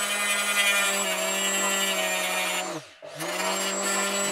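Rotary tool with a small abrasive stone running with a steady whine as it grinds screws set into a plastic gearbox housing into new gear teeth. Near three seconds in it is switched off and spins down, then starts again.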